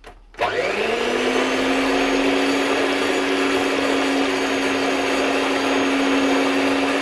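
SilverCrest electric stand mixer switched on with a click, its motor spinning up within half a second and then running loud and steady at one pitch, the beaters whisking eggs as sugar is added little by little.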